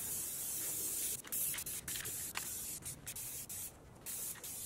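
Aerosol spray paint can hissing as paint is sprayed: a steady spray for about a second, then a series of shorter bursts with brief breaks between them.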